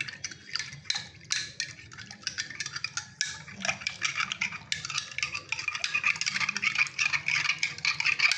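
A spoon stirring salt into water in a glass tumbler, clinking and scraping against the glass in quick irregular strokes. The strokes run faster and closer together from about five seconds in.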